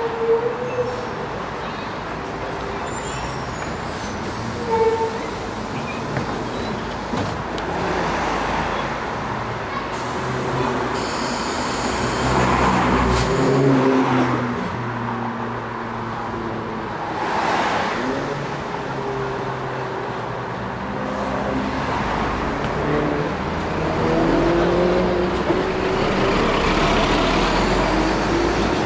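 Daewoo diesel city bus running through street traffic, stopping at the kerb and then pulling away, its engine note rising as it accelerates. A burst of air hiss comes about eleven seconds in.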